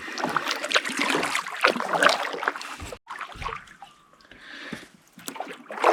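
Water splashing and dripping around a canoe as it is paddled, with small knocks. About halfway it cuts off suddenly, leaving only a faint hiss of water.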